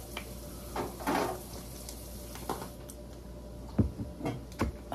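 A person drinking water from a glass jar: a run of gulps and swallows, about five or six short sounds, the strongest two low thumps near the end.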